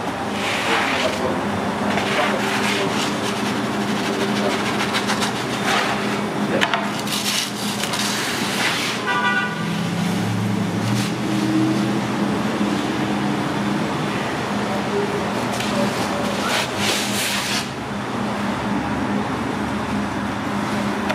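Pizzeria kitchen ambience: a steady machine hum under background voices, with occasional scraping and clatter as a wooden peel works pizzas on the deck oven's floor. A short pulsing beep sounds about nine seconds in.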